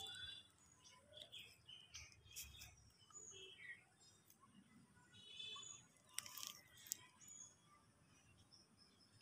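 Quiet outdoor ambience with faint, scattered bird chirps, and two sharp clicks a little past the middle.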